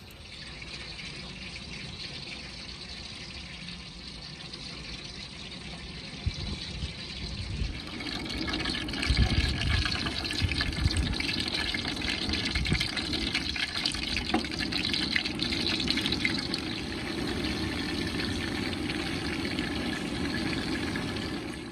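Stuffed chicken wings deep-frying in a large aluminium pot of hot oil, sizzling and bubbling. The sizzle grows louder about eight seconds in as more wings go into the oil, with a few low thumps around then.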